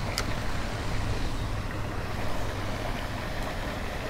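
Steady outdoor background noise: a low hum under an even hiss, with one faint click about a quarter second in.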